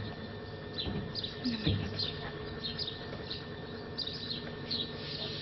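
Small birds chirping: short, high, falling chirps repeating a few times a second over a steady low hum. A brief low voice-like sound comes about one and a half seconds in.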